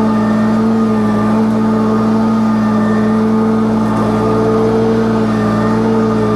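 Small petrol engine of lawn-care equipment running steadily at a constant speed, its pitch holding level without revving up or down.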